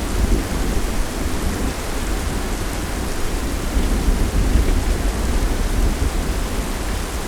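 Thunderstorm: steady rain falling, under a deep rolling thunder rumble that swells about four seconds in.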